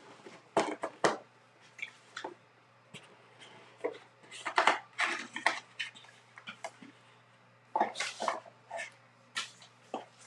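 Cardboard trading-card box and its plastic wrapping being handled and opened: irregular crinkling, rustling and light taps, with the longest rustles about halfway through and again near the end.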